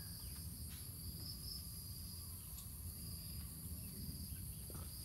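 Insects trilling steadily in a high-pitched background chorus, over a low steady rumble.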